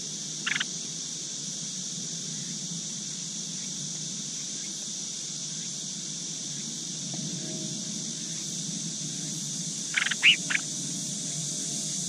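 Collared finchbills at the nest giving short, high chirps: one brief call about half a second in, then a quick run of three louder chirps near the end, over a steady high hiss.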